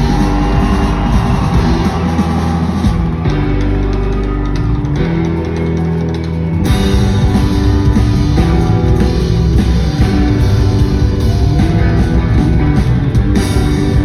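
Live country-rock band (electric guitar, bass and drum kit) playing an instrumental stretch of a song with no vocals. About halfway through, the drums and cymbals come back in at full band.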